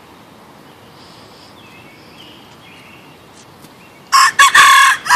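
A bantam rooster crowing once, loud, starting about four seconds in after a quiet stretch.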